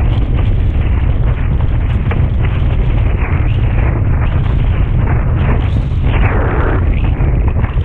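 Strong wind buffeting a boom-mounted action camera's microphone while windsurfing at speed, a constant heavy low rumble, mixed with the rush of the board through choppy water. A louder rushing surge comes about six seconds in.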